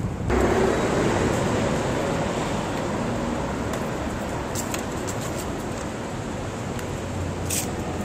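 City road traffic: a heavy vehicle passes on the road, loudest just after the start and slowly easing off, with a short hiss near the end.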